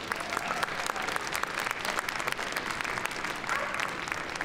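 Crowd applauding steadily, a dense patter of many hands clapping at once.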